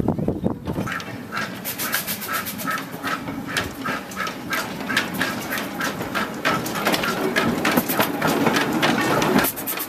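Replica of the early steam locomotive Locomotion No. 1 running slowly along the track, giving a regular beat of chuffs and clanks about three times a second, starting about a second and a half in.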